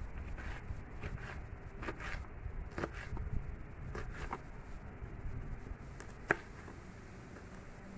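Sharp knife finely chopping green chillies against a metal plate: irregular short knocks, about one or two a second, with one sharper click about six seconds in, after which the strokes thin out.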